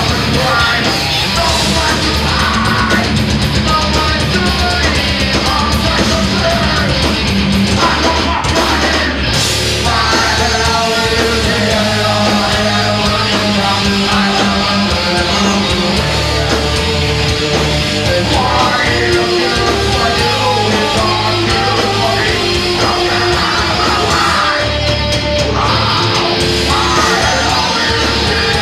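Heavy metal band playing live at loud volume, with distorted guitars and drums, and a singer yelling into the microphone.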